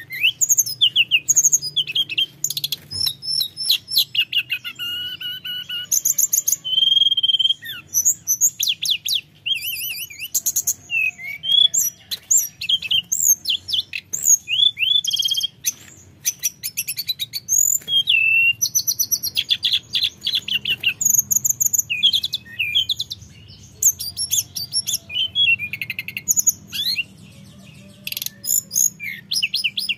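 Hill blue flycatcher in full song: a long run of rapid, varied warbling phrases, trills and clear whistles, barely pausing between them.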